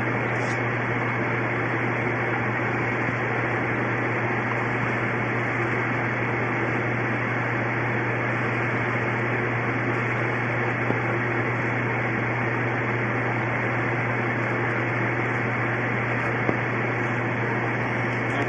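Steady mechanical hum with an even hiss, like a running fan or household appliance, unchanging throughout.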